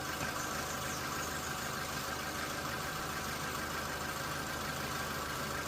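Mitsubishi Lancer's 1.6-litre 4G18 four-cylinder petrol engine idling steadily under the open hood. The ignition coil is suspected of being weak, possibly on its way out, after an ignition-signal fault code.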